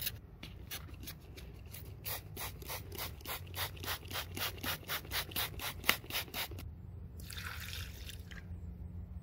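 Trigger spray bottle squirting water onto cornstarch-and-sand mix in a plastic bucket: a string of short sprays, a few at first, then rapid pumping at about three to four squirts a second. Near the end comes about a second of water being poured into the bucket.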